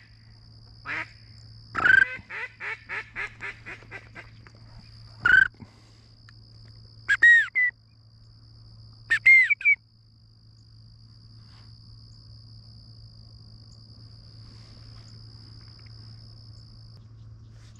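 Duck calling: a few loud single quacks, then a descending run of about ten quacks in the manner of a hail call, and later two whistled calls about two seconds apart.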